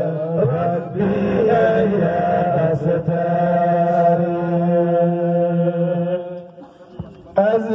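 Male voices chanting a drawn-out devotional invocation into microphones, holding long, wavering notes. The chant thins out briefly near the end, then comes back in strongly.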